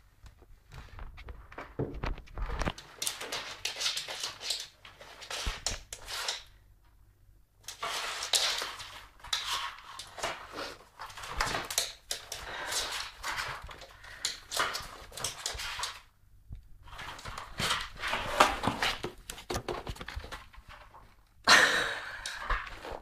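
Cardboard box rustling and scraping as a cat pushes its head and front half inside it, in several long stretches with short pauses between.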